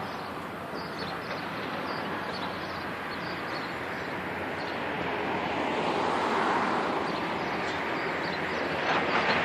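Excavators working on a demolition site at a distance: a steady mix of diesel engine noise with faint clinks and clatter of brick rubble, swelling for a couple of seconds past the middle.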